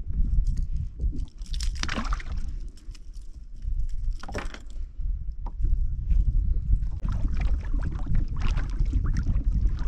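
Lake water sloshing and gurgling against a plastic fishing kayak's hull, over a steady low rumble, with two short rushing noises about two seconds in and just past four seconds.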